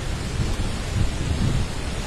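Storm wind and heavy rain from a tropical cyclone, with gusts buffeting the microphone as a deep, uneven rumble that swells about a second in.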